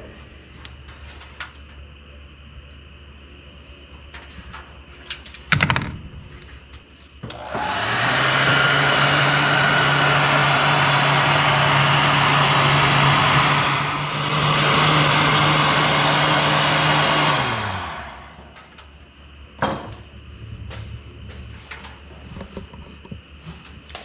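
Electric heat gun blowing for about ten seconds: a rush of hot air over a steady motor hum, winding up at the start and down at the end, with a brief dip midway. A single sharp knock comes shortly before it and another shortly after.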